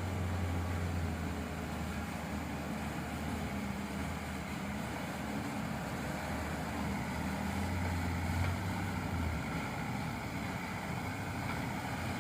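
Diesel truck engine running steadily under load as the truck passes, a low drone that drops away about nine seconds in.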